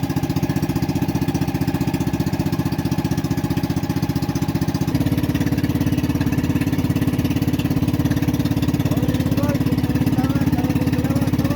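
Small boat engine running steadily, its note changing and growing slightly louder about five seconds in.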